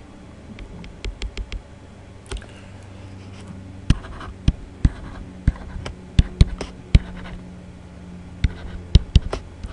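Stylus tip tapping and scratching on a tablet surface while numbers are handwritten. From about four seconds in it gives a string of sharp, irregular clicks over a steady low hum.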